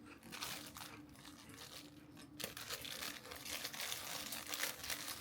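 Dense, rapid crinkling and crunching from crackers and their plastic packaging being handled and eaten, starting about half a second in.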